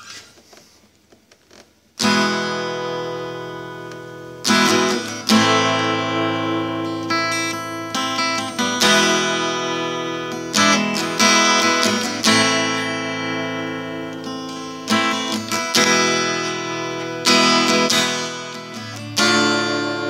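Acoustic guitar strumming chords in a song's instrumental intro, each chord left to ring and fade before the next strum. The playing starts about two seconds in, after a moment of faint hiss.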